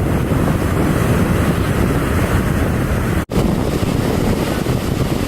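Strong wind buffeting the microphone over the wash of surf, a steady low rumble that cuts out for an instant about three seconds in.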